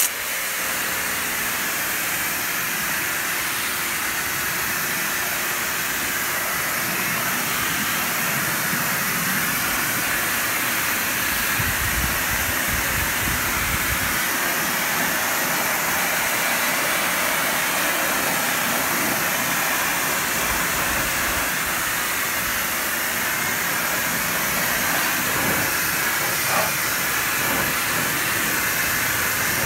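High-pressure washer jet spraying water onto a tractor's engine and fender: a steady hiss of spray on metal that starts suddenly, with a deeper rumble for a couple of seconds near the middle.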